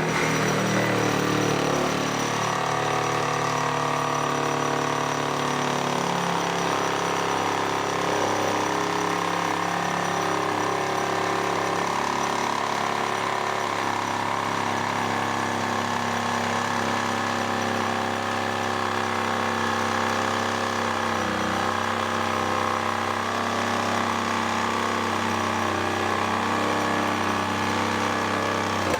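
Reciprocating saw with a 10-inch bimetal blade cutting through wood, running steadily under load for about half a minute and then stopping abruptly. The bimetal blade is a slow cutter in timber.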